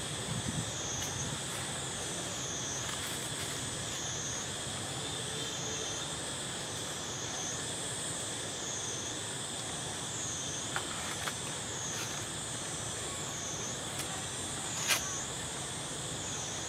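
High insect chorus droning steadily, swelling and fading in regular waves a little more than a second apart, with a few faint clicks.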